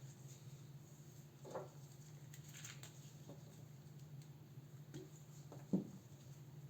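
Faint scattered clicks and taps of small tools and laptop parts being handled during disassembly, the sharpest one near the end, over a steady low hum.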